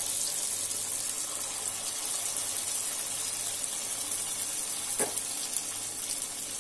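Rice-and-urad-dal vellaiappam batter deep-frying in oil in the wells of a paniyaram pan: a steady sizzling hiss. A short knock stands out about five seconds in.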